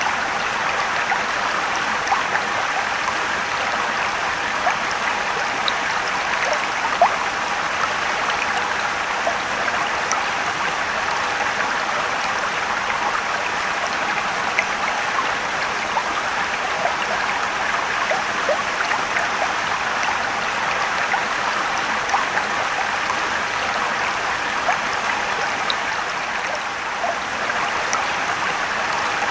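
Mountain stream and waterfall: a steady rush of running water with many small splashes and drips flecked through it.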